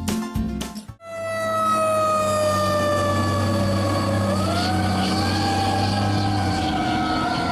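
Fire truck siren wailing in one long tone that sinks slowly, climbs again about three seconds in and then holds, over a low engine rumble that stops near the end. It is preceded by about a second of music with a beat.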